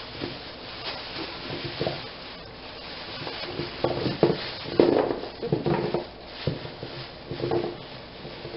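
Thin plastic grocery bags crinkling and rustling as carrots are tipped from one bag into another, the carrots knocking together as they fall. The handling comes in irregular bursts, loudest a little under five seconds in.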